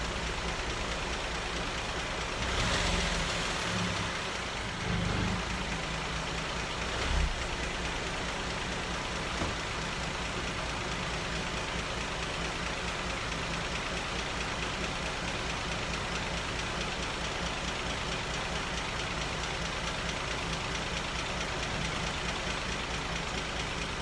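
Rebuilt Cadillac 3.6-litre V6 idling steadily on its first run after a total rebuild. A brief louder swell comes about three seconds in and again around five seconds, and a single sharp knock about seven seconds in.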